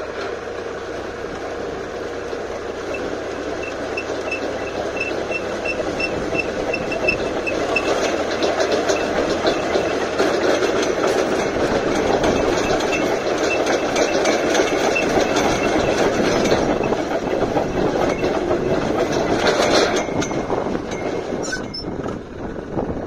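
Tractor-mounted hydraulic earth auger boring into dry soil: a steady churning and grinding of the spiral flight in the earth over the running tractor engine, growing louder as it digs and easing near the end as the auger is raised. A faint regular ticking, about three a second, runs through the first half.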